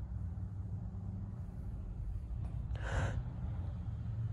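One short, sharp sniffing breath about three seconds in, over a low steady hum.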